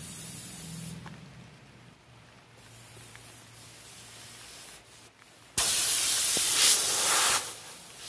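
Air hissing loudly out of a punctured tire, a sudden burst lasting nearly two seconds that starts about halfway through and then cuts off.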